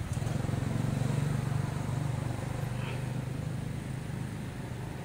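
Road traffic: a passing vehicle's engine as a steady low drone that slowly fades.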